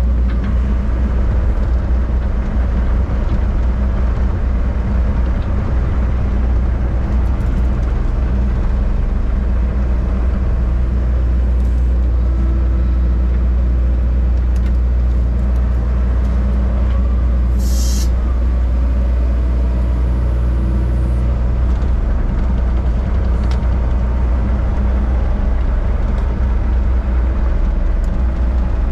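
John Deere 60G mini excavator's diesel engine running steadily, heard from the operator's seat, with a short hiss about two-thirds of the way through.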